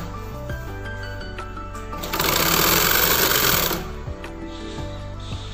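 Sewing machine running in one burst of fast stitching, about a second and a half long, starting about two seconds in, over steady background music.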